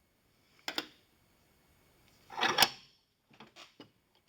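Pliers gripping and working a crushed brass tube back and forth to snap it off: two sharp metal clicks about a second in, a louder clattering scrape around two and a half seconds, then a few light clicks.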